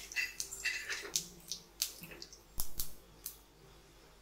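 Whole spices, black peppercorns and small seeds, crackling in hot oil in a nonstick kadai. The pops are sharp and irregular, thickest in the first three seconds and thinning out near the end.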